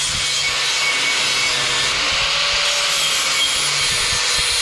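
Power tool grinding a bevel into the edge of thick aluminium stock for a full-penetration weld, a steady abrasive hiss that starts suddenly.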